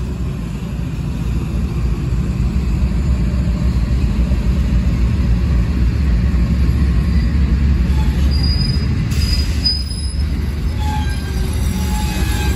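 Freight train rolling slowly past: a steady low rumble from the Union Pacific diesel locomotive and the steel wheels of the coal gondolas running over the rails. Faint, brief high-pitched wheel squeals come in from about eight seconds in.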